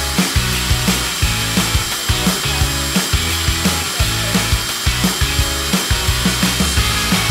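Cordless drill running steadily, spinning a cassette's reel hub to wind loose tape back in, under background music with a steady beat.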